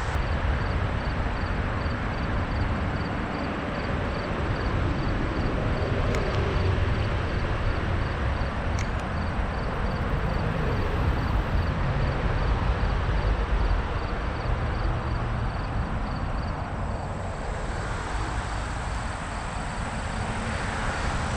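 Steady rumble of highway traffic. A faint, high, regular pulse repeats about three times a second over it.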